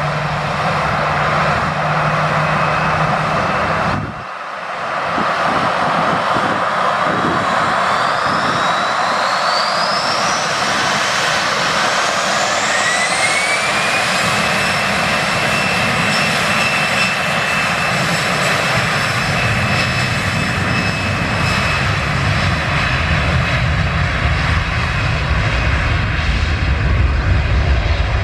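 Airbus A320 jet engines spooling up to takeoff thrust: several whining tones rise in pitch about halfway through and settle into a steady high whine over the engine noise. A low rumble builds near the end as the airliner begins its takeoff roll.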